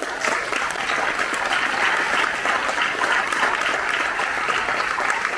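Audience applauding: many people clapping steadily, starting right as the speech breaks off.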